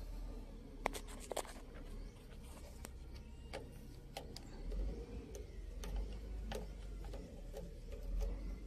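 Irregular small clicks and scrapes of hands working an electrical wiring connector, cleaning its terminals, over a low rumble.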